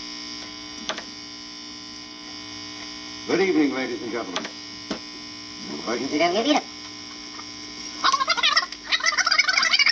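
Voices from a vinyl record of a radio broadcast, played on a modified Stanton turntable through a small workbench amp, come out garbled and warbling, sliding up and down in pitch as the platter speed is changed by hand. There are three bursts, the last the longest. Under them runs a steady mains hum from the ungrounded unit.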